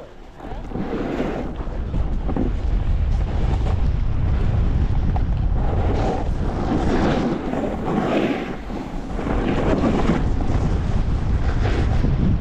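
Wind buffeting the microphone of a camera carried on a fast snowboard run. Under it, the board slides and scrapes over the snow with a hiss that swells and eases every second or two as the rider turns.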